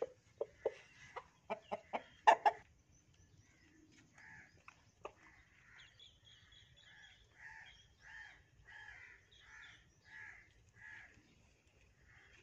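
Black feather-footed rooster giving a long run of short, soft clucks at about two a second while feeding on grain: the food call a rooster uses to summon hens to share what he has found. A few sharp taps come in the first couple of seconds.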